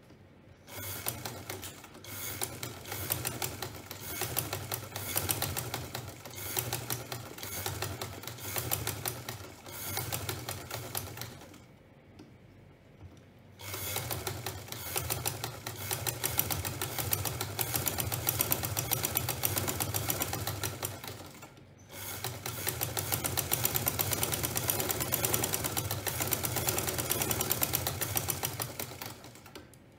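Libas sewing machine running in fast, even stitching bursts, darning back and forth over a cut in fabric. It runs in three stretches, stopping briefly about 12 seconds in and again about 22 seconds in, its speed rising and falling through the first stretch.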